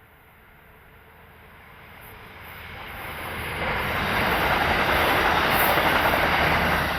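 A train approaching and passing close by: its running noise on the rails grows steadily over about four seconds, then stays loud.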